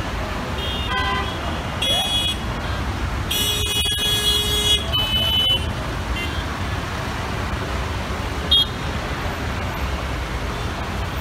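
Dense, slow-moving road traffic: a steady low rumble of engines and tyres, with vehicle horns honking several times in the first half, one held for over a second, and a short, loud honk about three-quarters of the way through.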